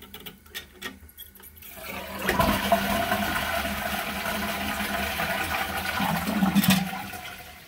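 First test flush of a newly installed rear-outlet (back-to-wall) toilet. A few faint clicks come first. About two seconds in, the cistern's water rushes out through the flush valve, runs steadily for about four seconds, then tapers off.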